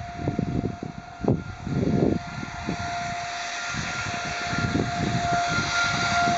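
Outdoor tornado warning siren sounding one steady tone that swells and fades, louder toward the end. Gusts of snowstorm wind rumble on the microphone underneath, with one sharp thump about a second in.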